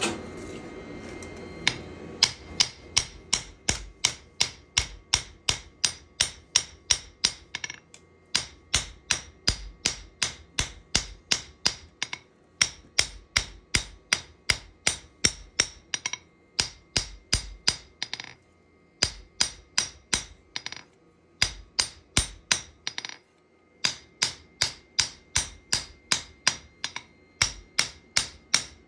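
Hammer blows on a steel knife blade being forged on an anvil, each with a short metallic ring. The blows come about three to four a second in runs, with short pauses between the runs.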